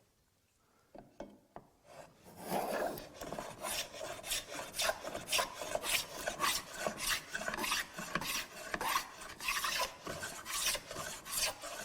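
Hand plough plane cutting a groove along a wood panel in quick repeated strokes, its iron shaving the wood with a rasping hiss. It starts about two seconds in, after a few faint clicks.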